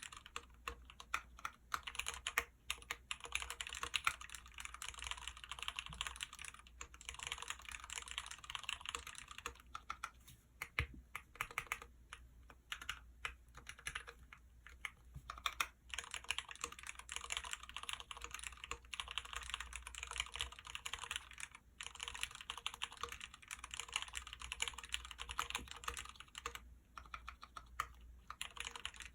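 Continuous typing on an OTD Koala replica custom mechanical keyboard with Cherry MX Black linear switches: a fast, dense run of keystrokes, broken by a few brief pauses.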